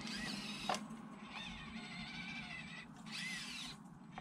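Small electric motor and drivetrain of a 1/24-scale Axial Ford Bronco RC car whining, rising and falling in pitch as it speeds up and slows. There is a sharp click a little under a second in, and a brief dip just before three seconds followed by another surge.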